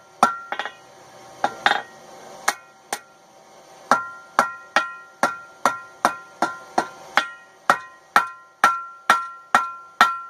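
Hand hammer striking a hot railroad spike on a steel anvil to draw it out, each blow leaving the anvil ringing. A few blows open, then a pause of about three seconds with only a couple of lighter knocks, then a steady run of a little over two blows a second.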